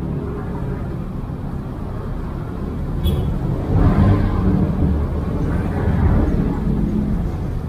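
Steady outdoor rumble with a motor vehicle passing nearby, growing loud about four seconds in and fading over the next few seconds. A single sharp click sounds just before it.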